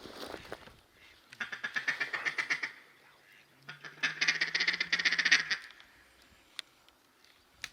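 Rapid runs of mallard quacking, twice: a short run about a second and a half in, then a longer one about four seconds in.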